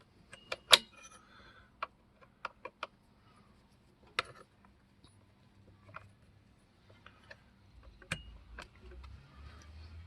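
Irregular sharp metal clicks and ticks as the chainsaw's chain tensioner adjuster screw is turned back with the bar wrench, the loudest click just under a second in.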